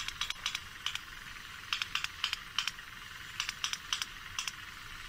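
Recorded sperm whale codas in the 3+1 pattern typical of Mediterranean sperm whales. Each coda is three evenly spaced sharp clicks followed by a fourth after a longer gap, and three such codas come in succession over a steady hiss.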